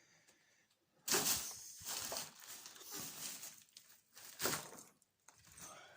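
Furniture scraping across a tiled floor, with banging. It starts suddenly about a second in, runs on irregularly, and there is another loud scrape about four and a half seconds in.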